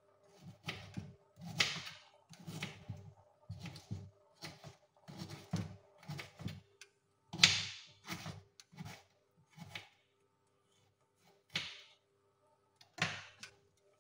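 A run of irregular knocks and clunks, about two a second, thinning to a few isolated ones after about ten seconds, with a faint steady hum beneath.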